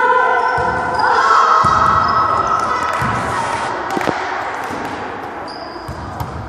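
Indoor volleyball rally: players' drawn-out shouts and calls over the volleyball being struck, with one sharp hit about four seconds in.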